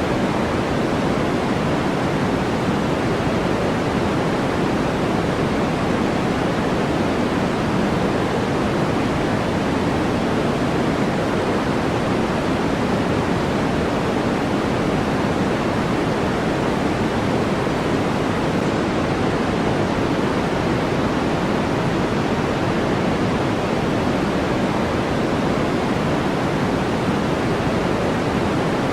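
Generated white-noise track: a steady, unchanging hiss, fuller in the low range than in the highs.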